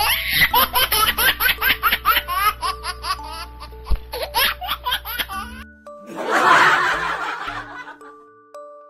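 Laughter in quick repeated peals for about five and a half seconds, then a short rush of noise, over light tinkling background music.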